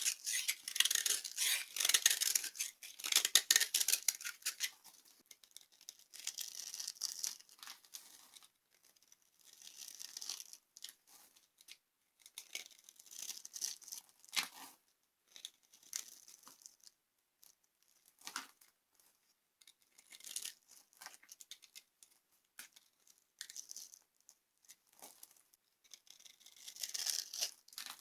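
Dry soap being crushed and crumbled: crisp crackling and crunching, densest in the first few seconds, then in short bursts every couple of seconds.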